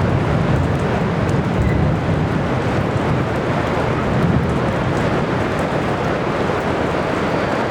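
Heavy rain falling steadily, with a low roll of thunder rumbling through the first half that fades out about four and a half seconds in.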